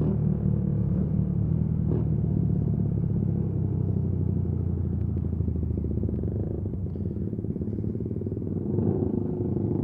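Motorcycle engine running steadily under way, a low, even engine note.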